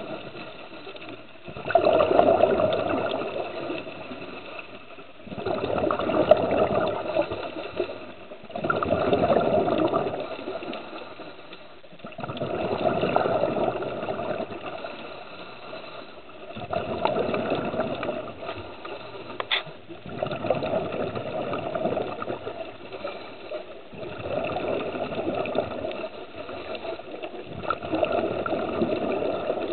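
A diver's breathing heard underwater: a gurgling rush of exhaled bubbles swells up about every four seconds and fades away between breaths, over a steady watery hiss.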